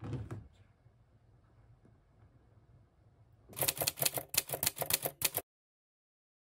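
Typewriter key-click sound effect: a fast run of sharp clacks lasting about two seconds, marking an on-screen caption being typed out, then cutting off suddenly. Just before it, right at the start, a soft thump as two cats scuffle in play.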